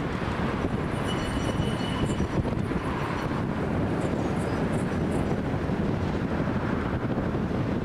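DÜWAG tram running on its track: a steady low rumble, with a brief faint high wheel squeal about a second in.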